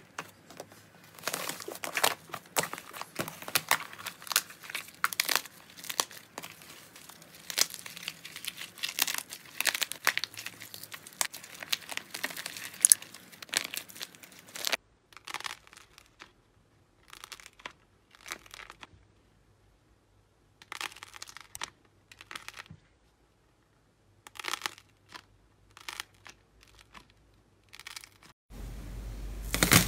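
Hands breaking up the dry, crispy crust on a tray of slime, giving dense crackling for about the first half. After that come sparser, softer squishing bursts as slime is stretched and squeezed, with short silent gaps.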